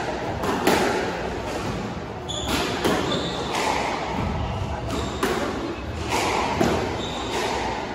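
Squash rally: a rubber squash ball being struck by rackets and smacking off the court walls, a sharp crack every half second to a second at an uneven pace.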